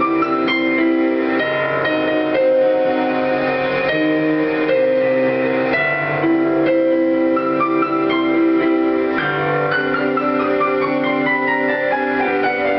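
Solo piano playing a slow piece of held chords that change about every two seconds, with a falling run of notes over the last few seconds.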